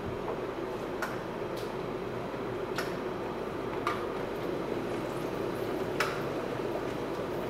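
Scattered sharp clicks and light knocks of a glass and bottles being handled on a counter and kitchen scale, over a steady background hum. Near the end, milk starts pouring from a jug into a tall glass.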